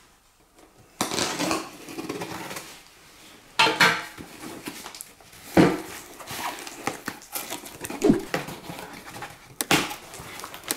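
A cardboard shipping box handled on a glass tabletop: packing tape slit open and cardboard flaps pulled back, with irregular knocks, scrapes and rustles, the sharpest about a second in and again near the end.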